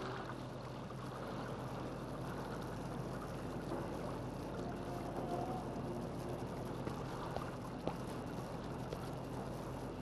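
Water lapping gently at a shoreline, a steady hiss-like wash, with a constant low hum under it and a few faint clicks in the second half.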